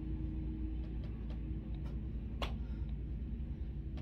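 Steady low hum with a few faint ticks, and one sharper click about two and a half seconds in.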